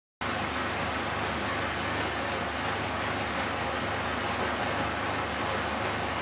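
Milling machine running, a steady mechanical noise with a constant high whine that starts abruptly about a fifth of a second in.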